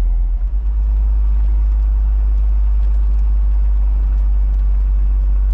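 Bucher Duro expedition truck driving slowly over bumpy, stony off-track ground, heard from inside the cab: a steady, deep drone of engine and running gear, with faint light rattles.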